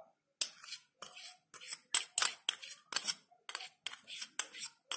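Sugar being knocked out of a fluted glass bowl into a stainless steel mixer jar: a run of sharp clinks, about three a second, starting about half a second in, as the glass bowl is tapped against the steel jar.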